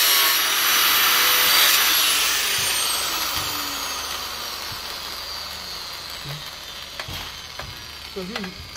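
Angle grinder cutting through a sheet-metal panel, then switched off and spinning down with a falling whine that fades over several seconds. A few sharp knocks near the end as the cut metal pieces are handled.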